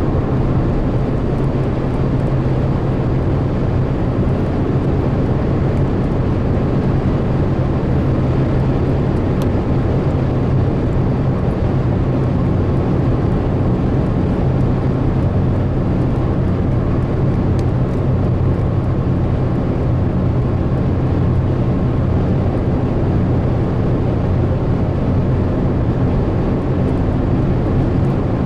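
Car driving at motorway speed, heard from inside the cabin: a steady low engine drone under constant road and tyre noise.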